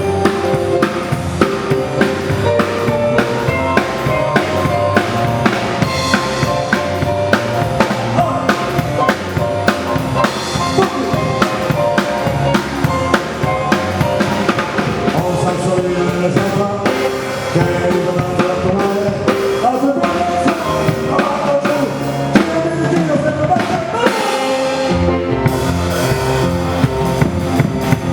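Instrumental music with a steady drum-kit beat of kick, snare and rimshot under a melody line. The bass and drums drop out briefly near the end.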